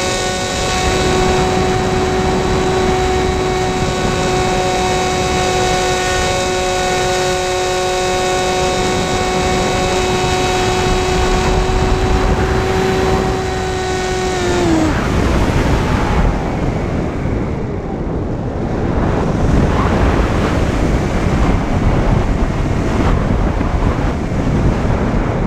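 Sky Eye RC plane's electric motor and propeller whining at a steady pitch, heard from the onboard camera. About halfway through, the throttle is cut: the whine drops in pitch and dies away. After that only wind rushes over the microphone as the plane glides.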